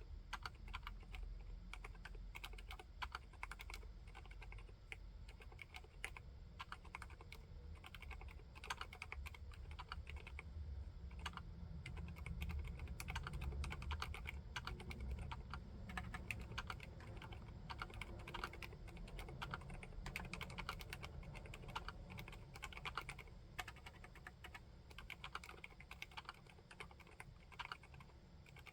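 Typing on an Akko Monsgeek M3 aluminium tenkeyless mechanical keyboard with Haimu Seasalt silent switches: a continuous, fairly quiet run of keystrokes.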